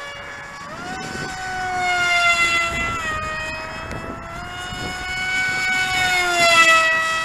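RC model airplane's motor and propeller whining in flight overhead, the pitch stepping up about a second in as the throttle opens and then easing down. It swells louder twice, around two and six and a half seconds in, as the plane passes.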